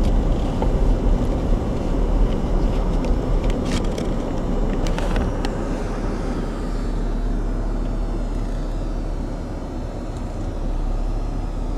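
Car driving, with a steady rumble of tyre and road noise and a few light clicks about four to five seconds in.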